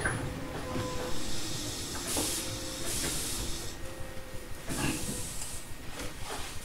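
Compressed air hissing from a Tobu 850-series electric train's air system in three short bursts, about two, three and five seconds in, over the car's low steady rumble.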